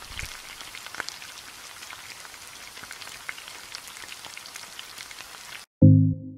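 A steady rain-like hiss scattered with small ticks and crackles, which cuts off suddenly near the end. Loud synthesizer music starts right after it.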